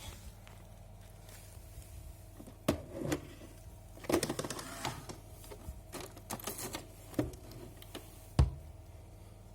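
Irregular handling noises: scattered clicks, knocks and short rattles of hard objects being moved, with a sharp knock about a third of the way in, a burst of rattling near the middle, and the loudest knock near the end.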